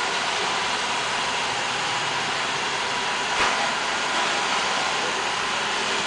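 Roomba robot vacuum running, a steady whir from its vacuum motor and brushes, with one sharp click about three and a half seconds in.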